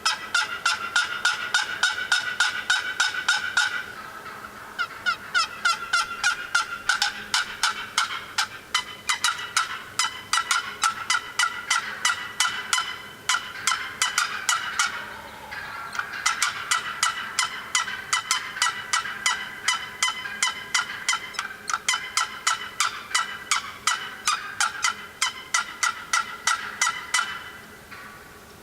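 Fast, continuous turkey yelping and cutting, about five or six sharp notes a second, in long runs with short breaks about four and fifteen seconds in.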